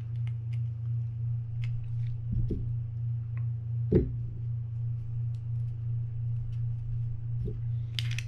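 Occasional light knocks and clicks of small spinning-reel parts being handled and fitted as the reel's gearbox and side cover go back together, the loudest about four seconds in. A steady low hum lies under it all.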